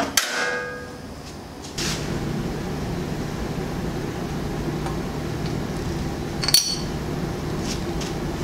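Metal parts of a threaded-rod headset press clink together, with a short ringing note at the start. A steady low hum follows, and a second sharp metallic click comes about six and a half seconds in.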